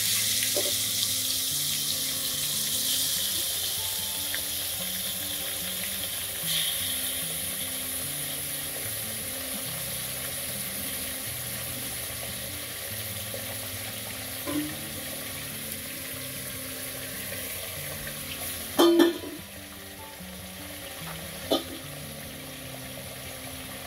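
Marinated beef slices sizzling in hot oil in an aluminium pressure cooker, loudest as they go in and slowly dying down. Soft background music plays underneath, and a sharp knock late on is the loudest sound.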